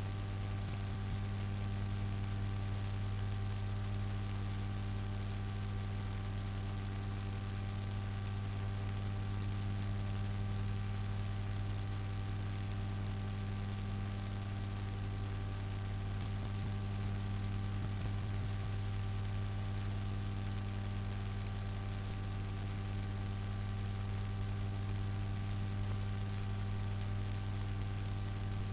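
Steady electrical hum, a set of unchanging tones over a constant hiss. It is mains-type hum carried on the remote camera's audio feed, with no animal or other sound standing out.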